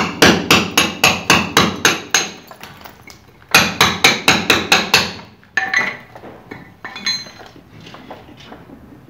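Hand hammer striking a plastered masonry wall in quick runs of about four blows a second. There are about nine blows, a pause of a second, then about seven more, followed by a few lighter knocks and some scraping.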